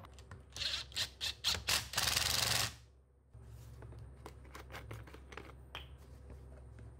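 Makita cordless impact driver driving a screw into the chainsaw attachment: five short trigger pulls, then one longer run of under a second. After that, a few faint clicks and taps of plastic bottles being handled.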